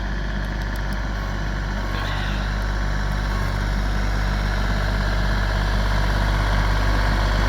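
Kubota tractor's diesel engine running steadily while plowing snow, a continuous low drone that grows slightly louder.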